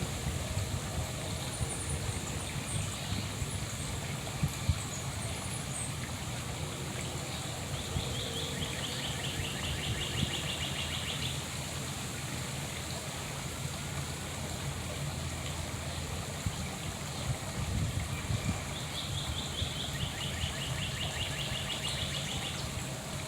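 A songbird singing a fast, slightly falling trill twice, each about four seconds long, over a steady low rumble. Faint high chirps come in the first few seconds.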